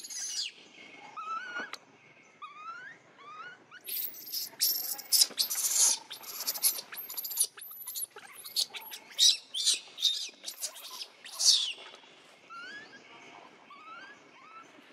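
Baby long-tailed macaque screaming in distress as it is held down by its mother: soft rising squeaks at first, then from about four seconds in a rapid run of about fifteen loud, shrill screams, easing back to softer rising squeaks near the end.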